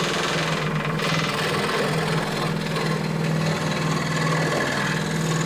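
Makita SJ401 variable-speed scroll saw running steadily, its blade cutting through a small piece of wood.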